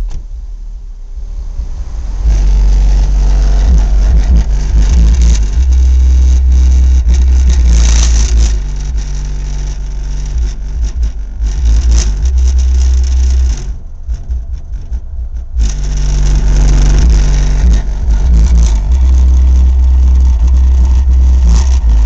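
Very deep, sustained bass notes from twin Kicker CVR 12-inch subwoofers on a Kicker ZX750.1 amplifier, playing hard enough to distort the recording and shake the car. The bass drops out briefly near the start and again about two-thirds through.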